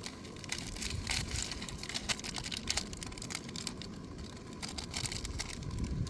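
Handling noise: scattered light clicks and rustling, with a low rumble underneath.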